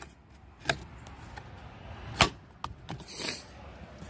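Sharp clicks and knocks of plastic interior door-trim covers on a 2010 Chevrolet Silverado being handled and pressed into place, the loudest about two seconds in, with a brief rustle a little after three seconds.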